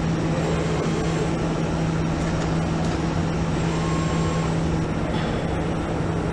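Steady low machine hum over a constant noise of running factory equipment on an automated assembly line.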